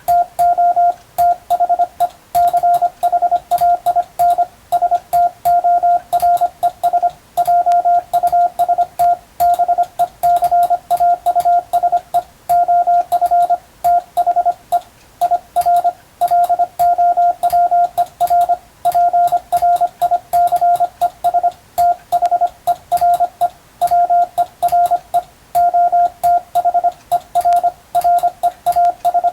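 Morse code (CW) sent by hand as a keyed mid-pitched tone: continuous dots and dashes with a faint click at each key-down and key-up, spelling out practice telegram text in English letters.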